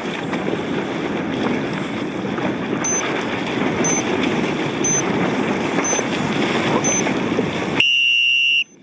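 Race start timer counting down: five short, faint high beeps a second apart, then a long, loud beep that gives the start signal. Under it runs a steady rush of wind and water.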